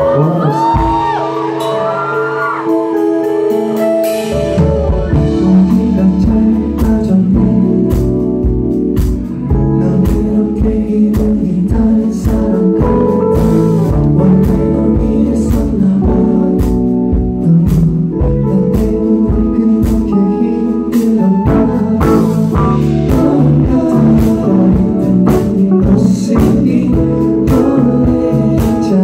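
A live band and singer performing an R&B song. A voice glides over held chords, then the drums and bass come in about four seconds in with a steady beat.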